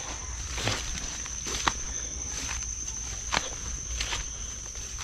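Footsteps pushing through leafy undergrowth, with a few sharp cracks underfoot. A steady, high-pitched insect drone runs underneath.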